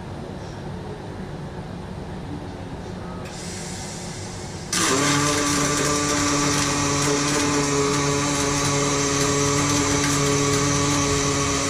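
Steady low machine noise, then about halfway through a much louder, steady hiss with several steady hums and whines cuts in suddenly and holds.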